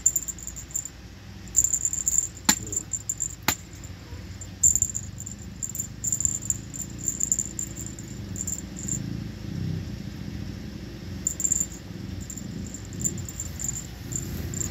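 A cat plays with a wand toy on a pile of bedding. There is rustling and handling noise, an intermittent high rattle, and two sharp clicks about a second apart near the start.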